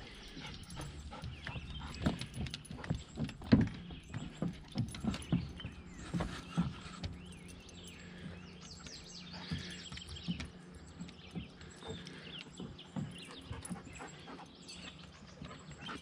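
Footsteps knocking on hollow wooden dock boards in an irregular run, loudest in the first few seconds and then sparser. A few faint bird chirps come about halfway through.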